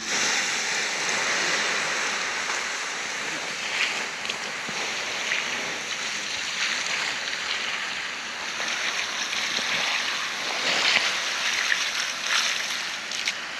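Water poured from a bucket onto the hot embers of a campfire, splashing and hissing steadily as it flashes to steam, which puts the fire out.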